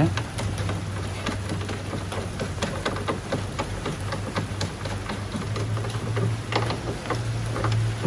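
Dense, irregular small clicks and ticks of a ground wire's terminal and fastener being handled and fitted onto a bolt in a car's engine bay, over a steady low hum.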